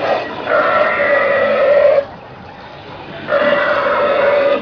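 Animatronic Tyrannosaurus rex figure giving two long, loud recorded roars, each about a second and a half, with a short gap between them.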